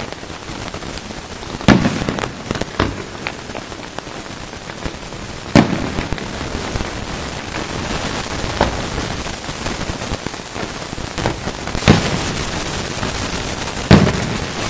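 Fireworks display: aerial shells bursting with sharp bangs every few seconds over a steady hiss.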